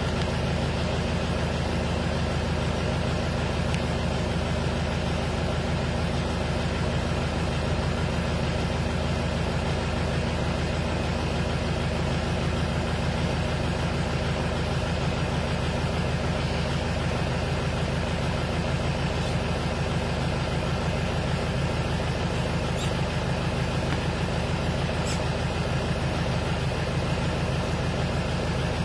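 A vehicle engine idling steadily: an even, unchanging low hum.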